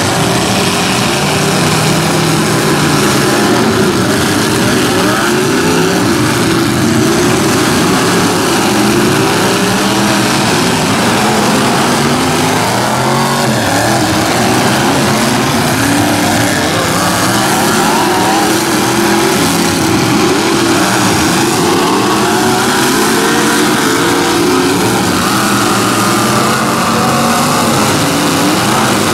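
Several demolition derby trucks' engines revving at once, their pitches rising and falling as they drive and ram each other; loud throughout.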